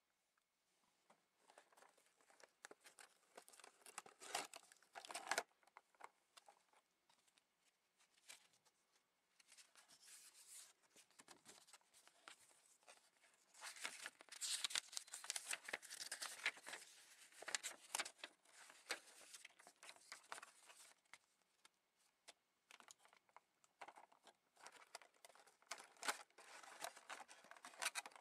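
A clear plastic blister pack and its cardboard backing being handled and pulled apart: irregular crinkling, crackling and tearing, starting about a second in and busiest around the middle, with short quiet gaps.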